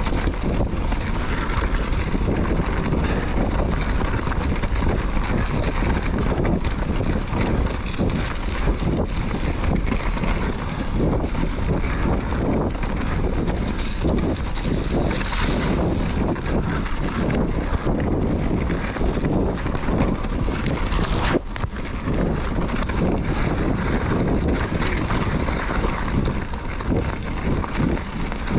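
Mountain bike descending a rocky singletrack at speed: wind buffeting the camera microphone over the rumble and rattle of tyres, chain and suspension chattering across stones.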